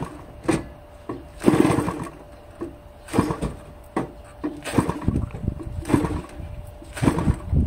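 Small gasoline engine of a large RC model plane being flipped over by hand at the propeller, firing in about six short, irregular bursts of a few strokes each without catching and running steadily.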